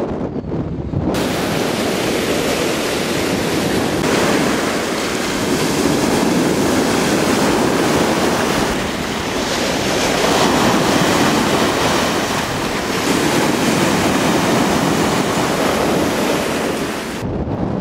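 Sea surf breaking close by over wooden groyne posts and washing up the shore: a loud, steady rush that swells and eases with each wave. For about the first second and again just before the end, there is only muffled wind noise on the microphone.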